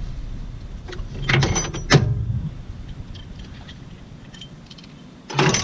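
Metal hand tools knocking and clinking against metal while a pulley puller works on a power steering pump pulley: a cluster of sharp knocks about a second and a half in, the loudest near two seconds, light ticks after, and another burst of knocks near the end.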